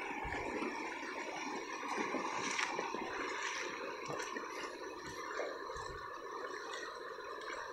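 Shallow river water flowing steadily over a sand flat, a continuous gurgling wash.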